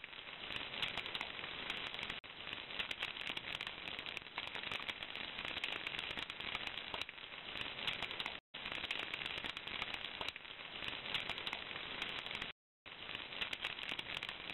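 Wood fire crackling steadily as ears of corn roast directly on the embers, broken by two brief silent gaps.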